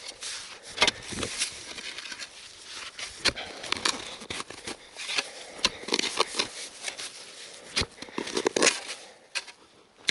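Digging in snow-covered soil: a run of irregular crunches, scrapes and crackles as earth and snow are dug through and turned over in search of a metal-detector target.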